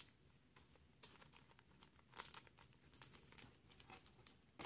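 Faint rustling and light clicks of a trading card being slid into a soft plastic penny sleeve and handled, with one slightly louder rustle about two seconds in.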